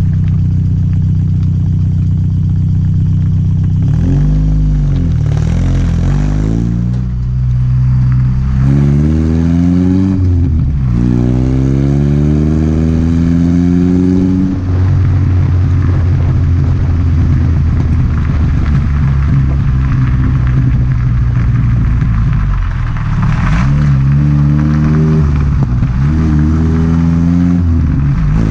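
1986 Nissan 720 pickup's engine running through a new header and Blue Streak long glasspack muffler, revving up and dropping back several times between steadier stretches.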